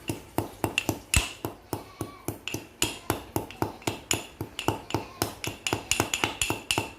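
Rapid, steady metallic knocking, about three or four strikes a second, each with a short ring: a metal tool striking repeatedly while East India rosebay bark is being worked up for a cough remedy.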